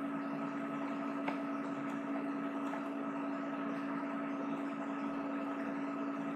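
Steady background hum and hiss with a constant low tone, with a faint click about a second in.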